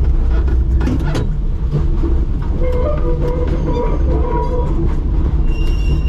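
1944 Melbourne SW6-class tram No. 893 running along the track, heard from its cab: a steady low rumble with a few sharp clicks as the wheels cross rail joints and points. A brief higher tone sounds near the middle.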